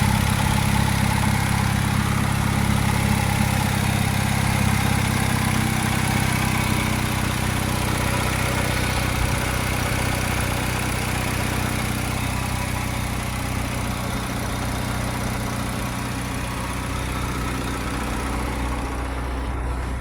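Turbocharged Honda Civic EJ1's four-cylinder engine idling steadily.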